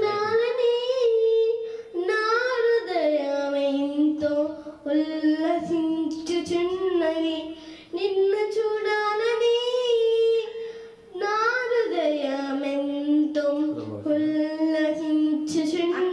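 A young girl singing a Telugu song, holding long notes in phrases of a few seconds with short breaths between them.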